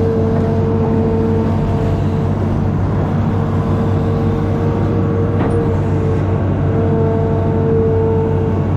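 Amphibious excavator's diesel engine running steadily, with a steady whine over it and a faint click about five and a half seconds in.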